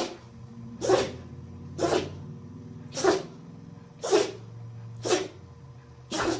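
A dog sneezing over and over, about once a second, seven short, sharp sneezes in a row.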